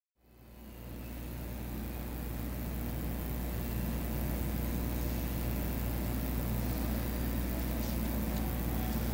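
Steady low electrical hum with a faint hiss of room tone, fading in over the first two seconds and then holding level.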